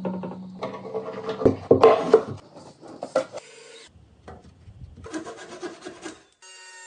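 Wood being rubbed and scraped, with a few sharp knocks, in short stretches that change abruptly.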